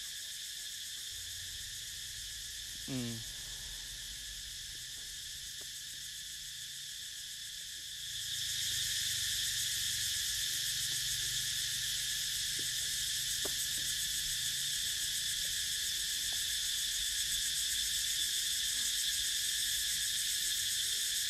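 Steady, high buzzing chorus of insects, growing louder about eight seconds in, with one brief falling call about three seconds in.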